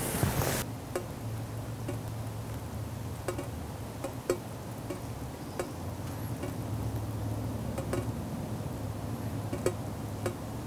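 Water from cut five-leaved native grape (water vine) lengths dripping into a stainless steel pot that already holds some water: irregular plinking drips, about one every half second to a second. A brief rustle of movement comes at the start.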